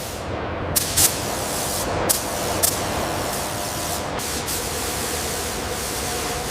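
A steady hissing noise, broken by several short sharp clicks in the first half.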